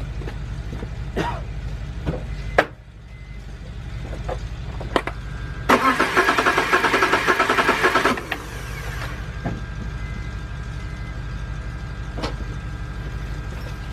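BMW 328i engine cranked on the starter for about two seconds with its ignition coils disconnected, so it turns over without firing, for a compression test. A steady low rumble runs underneath, with a few clicks.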